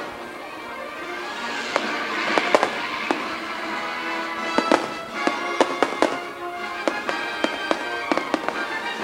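Fireworks going off in scattered sharp cracks and pops, more than a dozen, over the show's music.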